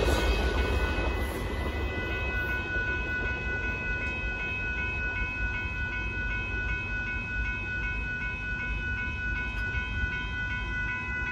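Railroad crossing warning bell ringing in a rapid, even repeat, over the low rumble of a loaded Union Pacific rock train fading away after it has cleared the crossing.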